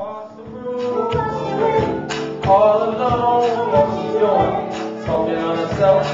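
Live soul band: singers vocalising into microphones over a drum kit and guitar, with drum and cymbal hits through it.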